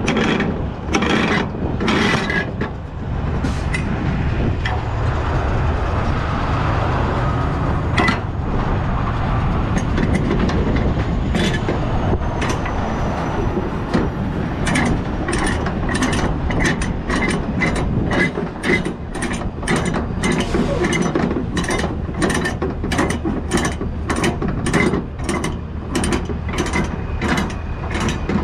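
Flatbed trailer strap winch being turned with a winch bar, its ratchet pawl clicking in a long run of regular clicks as the cargo strap is tightened.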